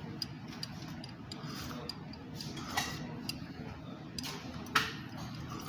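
Light clicks and clinks of tableware over a steady restaurant background hum, with two sharper clinks about three and five seconds in.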